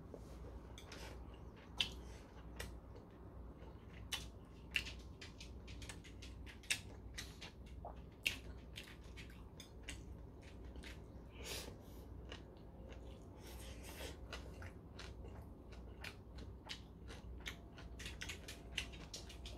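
Faint close-up chewing and mouth sounds of a person eating beef bulgogi with tomato and rice, with scattered small sharp clicks of metal chopsticks and spoon against the porcelain bowl.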